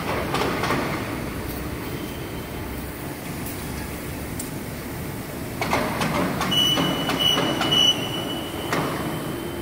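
Steady mechanical hum of a hydraulic guillotine shear's running power pack. From about six to eight seconds in there is metallic clatter, scraping and a thin ringing as a long, thin strip of freshly sheared 1 mm steel is handled on the concrete floor, with a few lighter clinks near the start.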